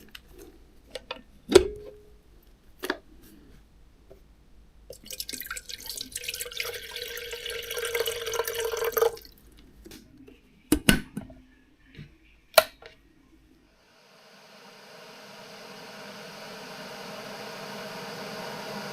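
Electric kettle being filled and started: a few clicks and knocks of handling, water pouring into it for about four seconds, then more knocks as it is set down and switched on. A few seconds before the end, the heating element's hiss starts and grows steadily louder.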